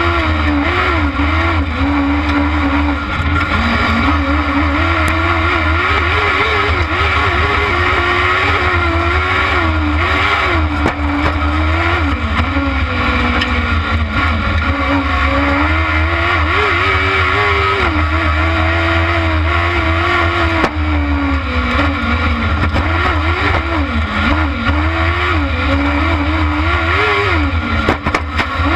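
Kart cross buggy's engine heard onboard at racing speed, its pitch rising and falling over and over as it revs up and eases off through the corners, over a constant low rumble.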